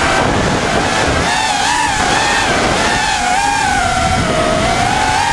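FPV racing quadcopter's motors whining, the pitch rising and falling constantly with the throttle, over a rush of wind noise.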